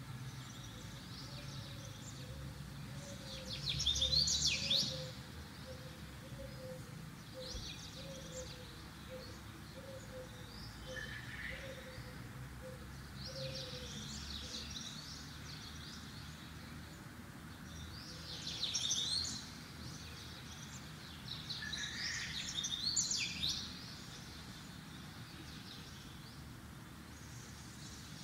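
A bird chirping and twittering in short bursts over a low steady hum, loudest about four seconds in and twice more in the last third.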